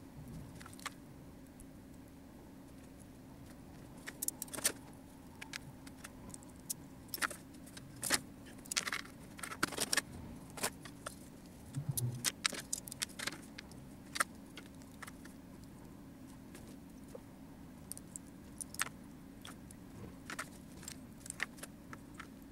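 Small plastic model-kit parts clicking and rattling as they are handled and fitted together, in irregular clusters of sharp clicks, busiest in the middle and sparser toward the end, over a faint steady hum.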